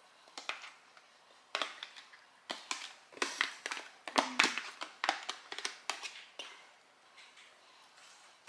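A metal fork scraping and tapping inside a plastic food container as food is emptied out onto a plate: a run of short clicks and scrapes, thickest around the middle and thinning out near the end.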